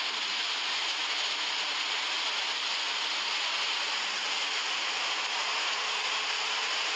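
Steady, even rushing noise of a lahar, a fast torrent of muddy floodwater pouring down a road, mixed with heavy rain.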